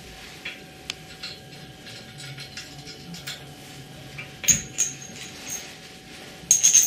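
Small metal fittings and a support pipe being handled on the floor during assembly: light taps and knocks, with sharp metallic clinks that ring briefly about four and a half seconds in and a quick cluster of them near the end.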